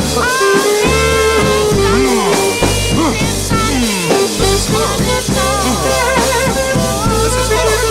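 Late-1960s band music in an instrumental passage with no vocals: saxophones play sliding, swooping notes over a steady low accompaniment.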